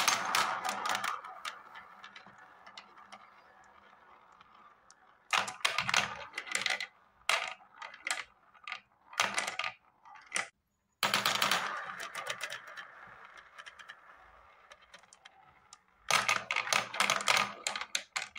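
Small balls rolling around a plastic marble-run spiral funnel and clattering as they drop through the centre hole onto the plastic base below. It comes in several bursts of rapid clicks, some trailing off into a rolling rumble that fades over a few seconds.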